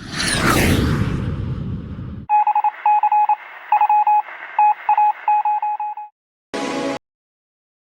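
A loud whooshing noise for about two seconds, then a run of short electronic beeps of one pitch in uneven groups, like keypad or phone tones, ending with a brief tonal blip.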